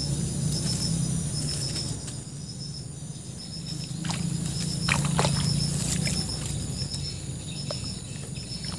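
Insects chirping in short high trills that repeat about once a second, over a low steady hum.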